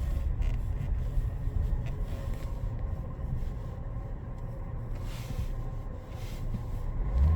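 Škoda Octavia A7 running with a steady low rumble; near the end a loud low hum sets in. This is the intermittent drone the owner is chasing, which seems to come from near the air-conditioning compressor and stays with the air conditioning switched off.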